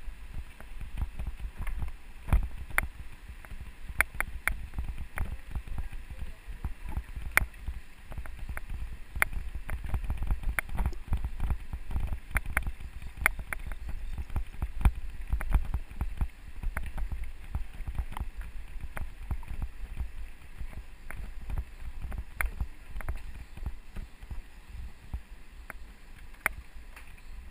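Mountain bike rolling over a rocky dirt forest road, recorded by a GoPro mounted on the bike: a steady low rumble with frequent sharp knocks and rattles as the bike jolts over stones.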